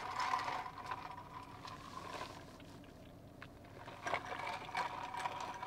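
A person quietly sipping a lavender oat-milk latte, with a few faint clicks from the cup.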